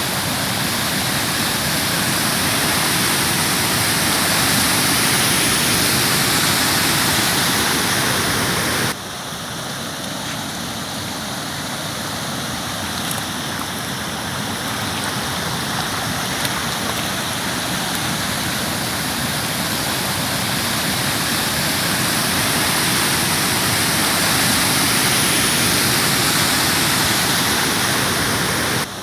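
Steady rushing noise of heavy rain and flowing floodwater. It drops suddenly quieter about nine seconds in and then carries on steadily.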